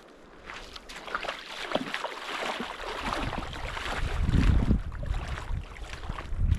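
River water splashing as a person bathes in it, with wind buffeting the microphone. The low rumble grows loud about halfway through.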